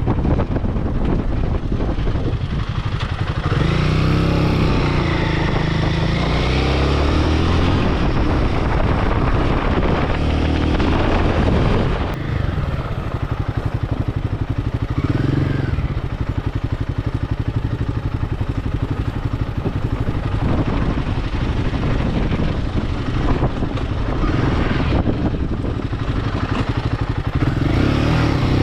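Royal Enfield Himalayan 450's single-cylinder engine running on the move, with wind noise on the microphone. The engine pitch rises and falls a few times as the rider opens and closes the throttle.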